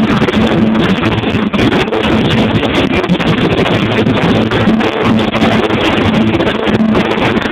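Rock band playing loud at a soundcheck, heard as a dense, steady wash of drums and guitars.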